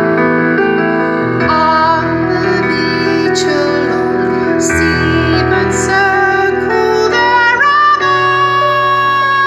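Live band music: keyboard chords under a woman's high soprano voice holding long notes with vibrato, the voice climbing to a high sustained note near the end.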